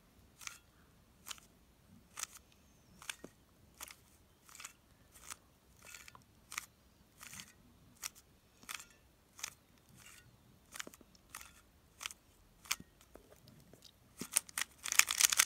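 Stickerless 3x3 speedcube's plastic layers clicking as they are turned one move at a time through the F-perm algorithm, about one and a half turns a second, then a quick flurry of turns near the end.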